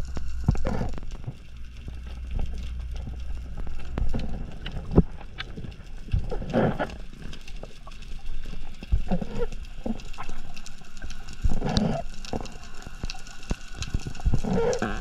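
Underwater sound picked up by a diver's camera: scattered sharp clicks and crackles, with a low rumble in the first few seconds and several short, louder rushes of water noise every two or three seconds.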